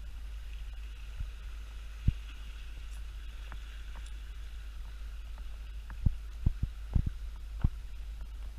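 Steady wind rumble on the microphone, with a few dull thumps, one at about two seconds and several close together near the end.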